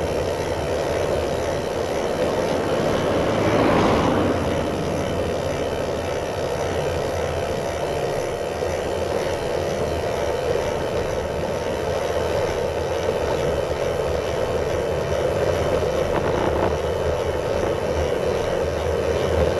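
Steady wind rushing over a handlebar-mounted GoPro's microphone, mixed with tyre noise from a bicycle rolling downhill, swelling briefly about four seconds in.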